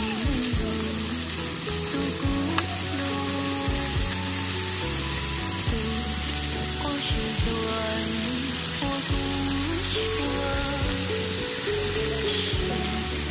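Slices of backstrap meat sizzling in hot oil in a grill pan as they are turned with metal tongs, a steady frying hiss. Background music with shifting pitched notes plays under it.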